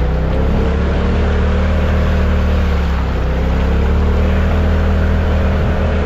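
Off-road vehicle engine running steadily under load while driving along a creek, its pitch dipping a little around the middle and coming back up, over a steady rush of water and tyre noise.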